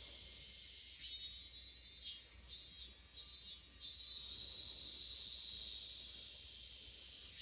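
Insects chirring in a steady high-pitched chorus, with a few short pulses about two to four seconds in.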